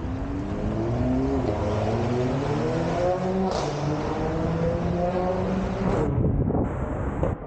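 A motor vehicle's engine accelerating: its pitch climbs and drops back twice, then holds fairly level before fading about six seconds in.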